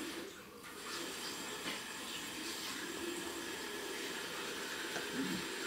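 Steady faint hiss and low hum of room tone, briefly dipping about half a second in, with a short faint low sound near the end.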